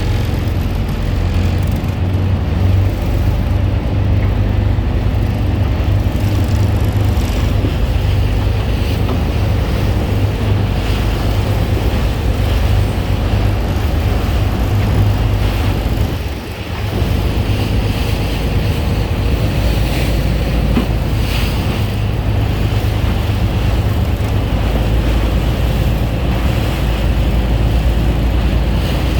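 Strong wind buffeting the microphone as a steady low rumble, with a brief lull about halfway through, over the wash of sea waves.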